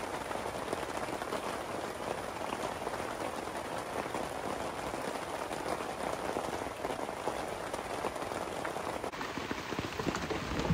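Steady rain falling on a tent's fabric, heard from inside the tent.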